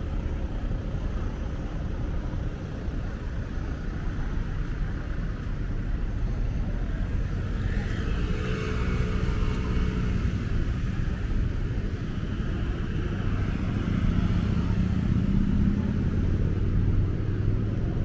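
Road traffic: cars passing over a steady low rumble, one swelling past about halfway through and a louder engine near the end.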